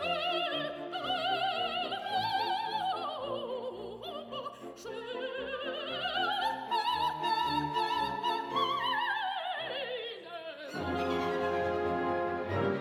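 Operatic soprano singing with an orchestra, her voice carrying a wide vibrato; a long high note in the middle slides down and the singing stops about two seconds before the end, leaving the orchestra's strings playing on their own.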